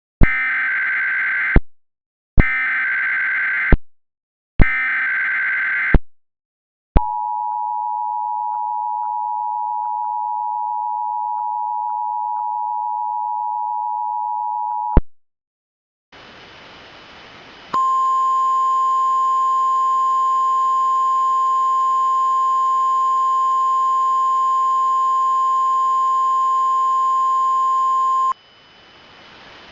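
Emergency Alert System tones: three short bursts of screechy SAME header data, then the two-tone EAS attention signal held for about eight seconds. After a second of static hiss, a steady single alert tone with a buzz plays over the static for about ten seconds and cuts off suddenly.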